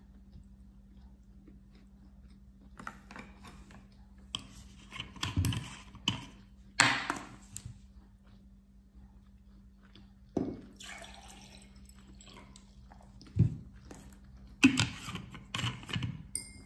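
Close-miked eating sounds: wet chewing and mouth noises from someone eating sushi, broken by scattered short clicks and knocks of utensils. A faint steady low hum runs underneath.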